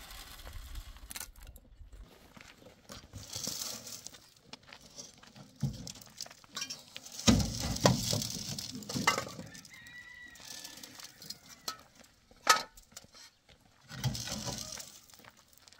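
Hollow clay building blocks being handled in a pickup's sand-covered bed: irregular knocks, clinks and scrapes as blocks are lifted out and set down, with a heavier thump about seven seconds in and a sharp clack about twelve seconds in.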